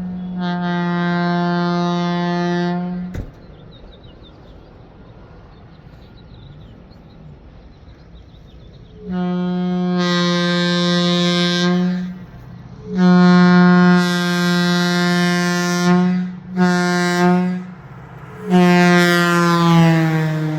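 A-200 locomotive air horn blown on compressed air: four blasts, long, long, short, long, the last one dropping in pitch as it goes. Its low chord sounds slightly sour, the horn being out of tune.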